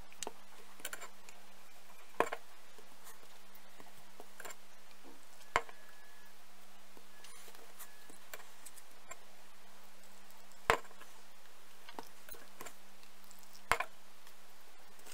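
Light plastic clicks and knocks of seedling cups being handled and set down on a plastic container lid: four sharp clicks spread a few seconds apart, over a faint steady hum.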